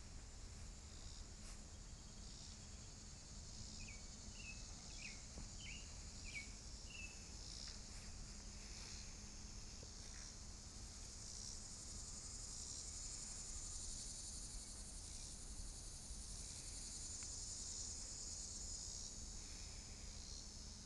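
A steady, high-pitched insect chorus, likely crickets or cicadas, pulsing and growing a little stronger in the second half. A few short bird chirps come about four to seven seconds in.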